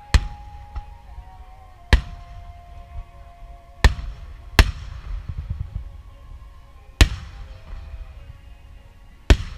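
Large aerial firework shells bursting, six loud booms one to three seconds apart, each followed by a rumble and crackle. Music with long held notes plays underneath.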